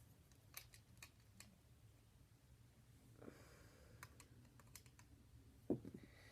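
Faint, scattered sharp clicks of plastic Lego pieces being handled and fitted together, with a soft low thump near the end.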